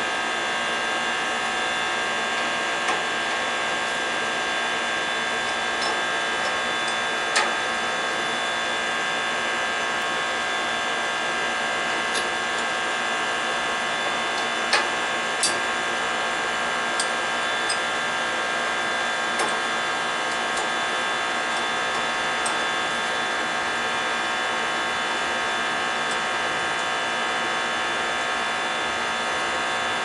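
An electric motor running steadily with a constant whine, with a few sharp clicks now and then.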